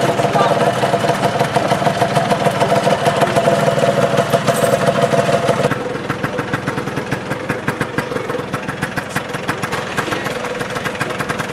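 Motor scooter engine idling with a rapid, even beat. About halfway through, the sound changes abruptly to a quieter, rougher idle.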